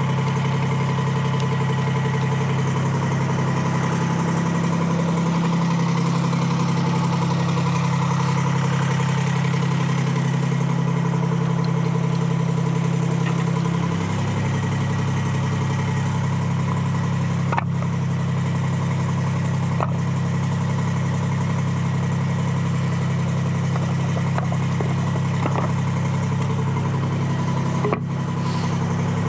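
Detroit Diesel 3-71 two-stroke three-cylinder diesel running steadily as the sawmill's power unit. Its note shifts about halfway through, and a few sharp knocks come in the second half.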